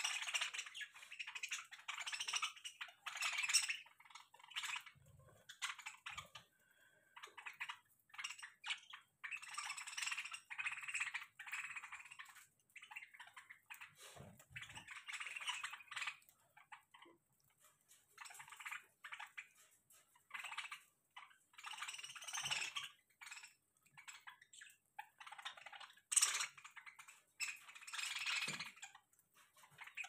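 A flock of budgerigars chattering and warbling in short, overlapping bursts, with light clicks of birds pecking and cracking seed.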